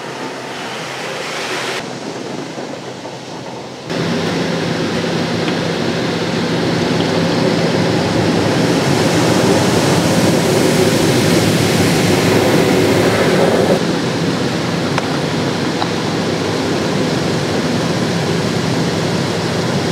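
Touchless automatic car wash jets spraying water and foam onto a car, heard from inside the cabin: a steady rushing hiss with a low machine hum. It gets louder suddenly about four seconds in and eases a little about fourteen seconds in.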